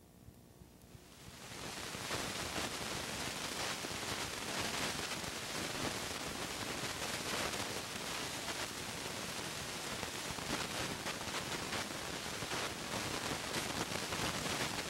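Steady hiss with fine crackling, like recording static, fading up about a second in and holding steady.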